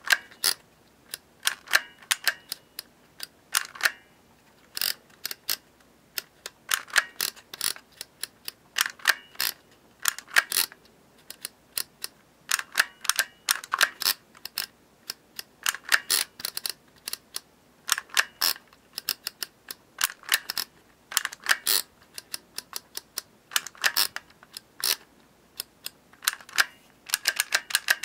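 Dymo M-8 handheld embossing label maker in use: the character wheel is clicked round to each letter and the handle squeezed to emboss it into plastic label tape, giving irregular runs of sharp plastic clicks and clacks.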